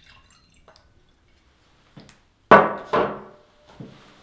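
The last of a pour of red wine trickling into a glass, then a wine bottle set down on a glass tabletop: two sharp knocks about half a second apart, each with a short ring.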